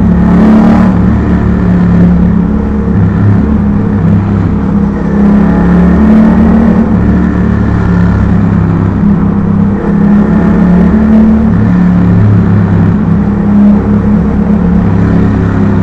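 Yamaha MT-07's parallel-twin engine pulling under throttle inside a road tunnel. The note holds steady with small rises and falls in pitch, and the tunnel walls echo it.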